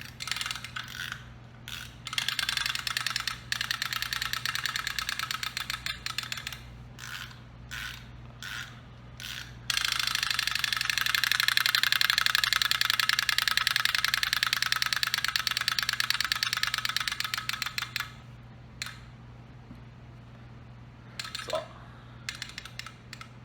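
Wind-up chattering toy teeth running: a fast, even clicking chatter of the clockwork and the plastic jaws snapping, in short stop-start bursts and one long run of about eight seconds in the middle.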